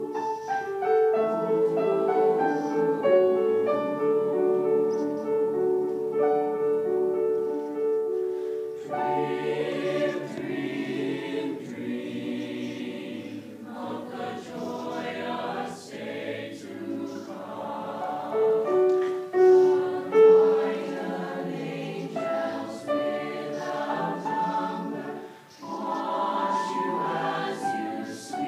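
Mixed choir singing a slow piece with grand piano accompaniment.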